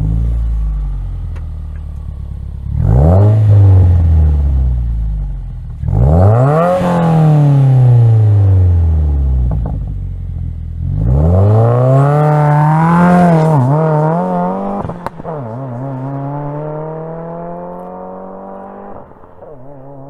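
2015+ Subaru WRX's turbocharged 2.0-litre flat-four engine through an aftermarket exhaust, revved three times, the pitch climbing and falling back each time with the third rev the longest. It then settles to a lower, steadily running note that slowly rises.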